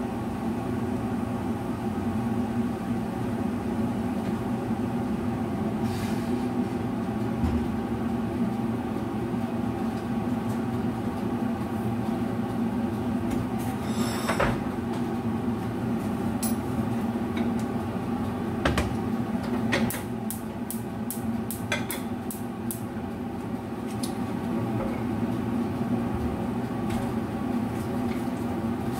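Kitchen range-hood fan humming steadily over a covered wok on a gas hob, with scattered sharp clicks and a quick run of them about twenty seconds in.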